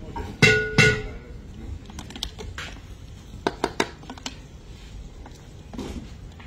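Two sharp metal clanks that ring briefly, about half a second apart, from cooking utensils against the big iron wok, followed by a scattering of lighter clicks and taps.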